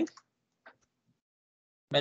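A single faint computer click about two-thirds of a second in, against otherwise near-silent room tone.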